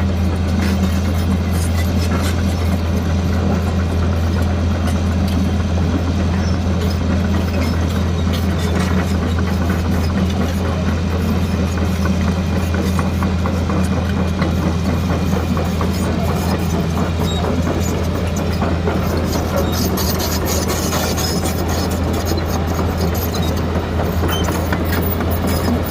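Hitachi excavator's diesel engine running steadily: a constant low drone with a light rattle over it.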